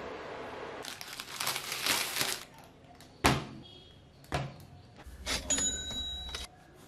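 Kitchen prep handling: a steady hiss at first, then a couple of seconds of irregular rustling, two sharp knocks, and a knife cutting through a soft sesame burger bun near the end.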